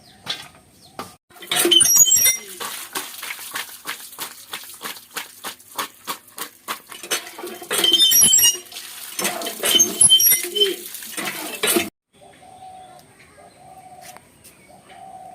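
Chopped taro pieces being washed by hand in a bowl of water: rapid splashing and sloshing with quick repeated strokes, cutting off abruptly about twelve seconds in.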